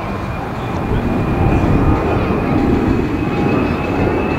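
A-10 Thunderbolt II in flight, its two General Electric TF34 turbofan engines giving a steady jet rumble with a high fan whine over it. The whine rises slowly in pitch.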